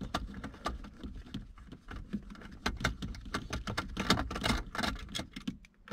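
Quick runs of small metallic clicks and rattles from an 8mm socket wrench working a stereo mounting bolt loose in a car's centre console.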